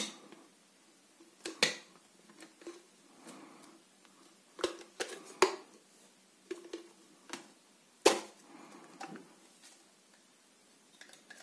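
Top cover of a stainless-steel SVAVO V-370 automatic soap dispenser being prised off its body by hand: about half a dozen sharp plastic-and-metal clicks and snaps scattered over quiet handling and rubbing.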